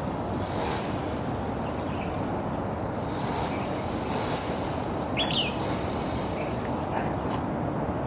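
Steady low rumble of distant traffic, with a single brief high bird chirp about five seconds in and a few short high hissing sounds.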